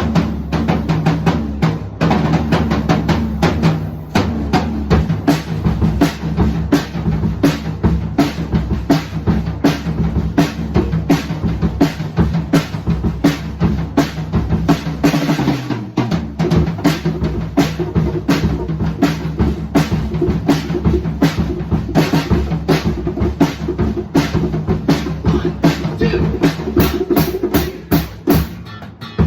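A live band playing an instrumental passage: a drum kit keeps a busy, steady beat over sustained bass-guitar notes. A low note slides down about halfway through.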